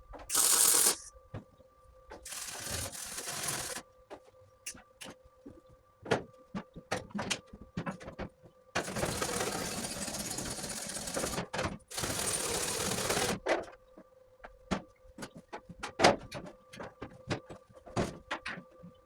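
MIG welder arc on aluminium, laid down in four short runs of about half a second to three seconds, the arc hissing and crackling, with clicks and taps between the runs: stitch welding.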